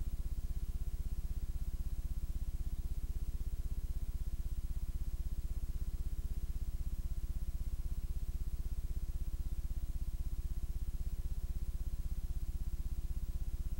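Steady low electrical hum with a fine, rapid buzzing pulse, carried on the audio track of a transferred VHS tape.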